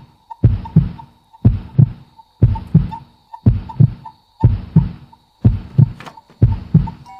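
Heartbeat sound effect: slow, deep double thumps (lub-dub), about one a second, seven in all. A faint high-pitched whine and a soft pulsing tone sit behind it.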